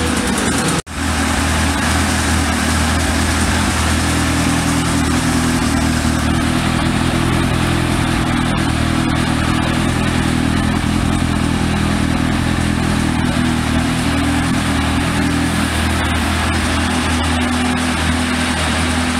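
Yamaha YZF1000R Thunderace's inline-four engine idling steadily through a Yoshimura RS-3 exhaust silencer. There is a brief break in the sound about a second in.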